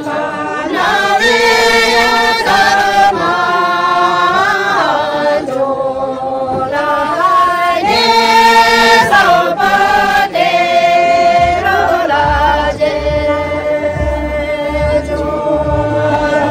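A group of men and women singing a traditional Bhutia wedding song together, unaccompanied, in long held notes that step up and down. Dull low thumps come in during the second half.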